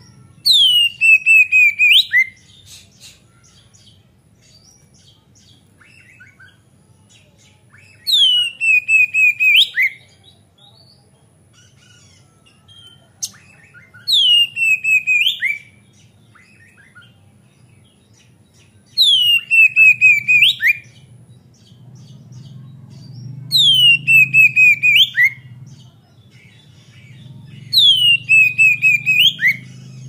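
Oriental magpie-robin singing loudly in six phrases spaced a few seconds apart. Each phrase is a quick run of repeated notes that glide down in pitch and end in a sharp upward flick.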